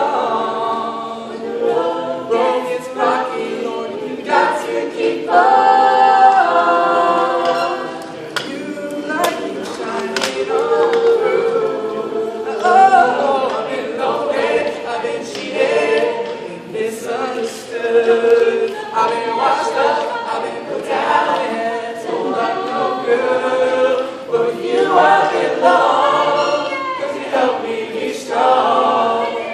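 Mixed male and female a cappella vocal group singing a song in harmony, unaccompanied by any instrument.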